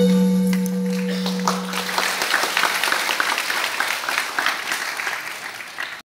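The last held note of the music dies away over the first two seconds as an audience breaks into applause, which builds and keeps going.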